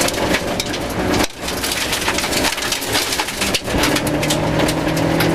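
Rover 214 rally car at speed on a gravel stage, heard from inside the car: the 1.4-litre engine running under load while gravel and stones crunch and patter against the underside and wheel arches. The noise dips briefly about a second in, and the engine note comes through steadier near the end.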